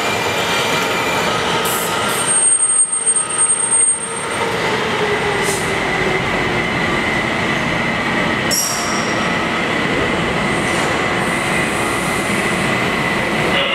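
Washington Metro Breda 2000-series subway train pulling into an underground station and slowing to a stop. A steady rumble of wheels and running gear carries a whine that slowly falls as the train brakes, with a few brief high wheel squeals early on and again about two-thirds of the way through.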